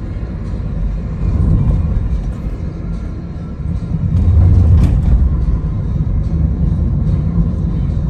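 Road and engine noise inside a moving car: a steady low rumble. It grows louder about halfway through as the tyres run over a stretch of rough, broken pavement.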